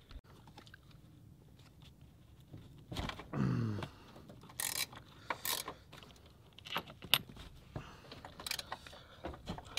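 Scattered metallic clicks and clinks of a 14 mm ratcheting wrench loosening the top strut-mount nuts on the strut tower.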